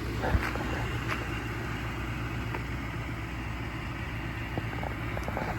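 A vehicle engine idling steadily with a low, even hum, and a few light taps near the start.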